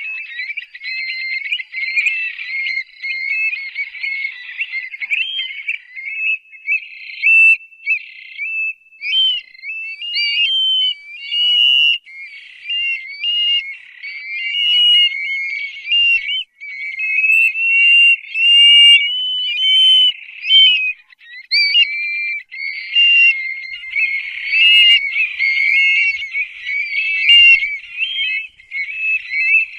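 Stone-curlews calling: a dense, continuous run of high whistled calls whose pitch jumps up and down, several often overlapping at once.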